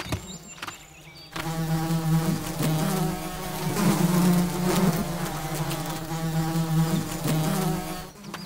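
Bee buzzing (cartoon sound effect), a steady drone that wavers a little in pitch, starting about a second and a half in and stopping just before the end.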